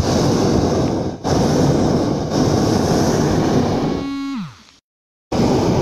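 Hot-air balloon propane burner firing in long, loud blasts. About four seconds in, the blast dies away with a falling whistle as the valve shuts. After half a second of total silence, the burner is firing again.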